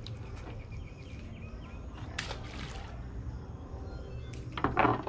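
Quiet handling and knife-work on a tilefish carcass on a cutting board: faint clicks and taps, and a swishing scrape about two seconds in, over a steady low rumble. A brief voice-like sound near the end.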